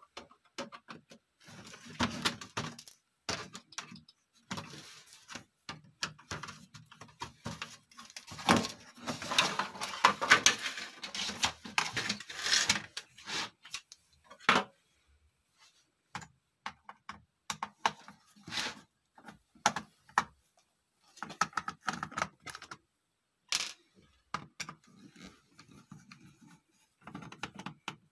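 Computer keyboard keys and plastic keycaps clicking and clattering as the keyboard is worked on during cleaning. The clicks come irregularly, with a dense run of clatter about a third of the way in and pauses between shorter bursts.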